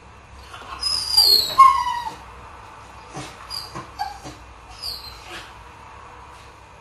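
A dog whining in high-pitched, falling cries, loudest about a second in, followed by several shorter whines.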